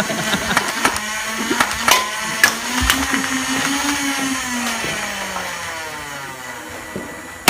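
Small electric motor whining, its pitch rising a little and then slowly falling and fading as it winds down, with scattered clicks.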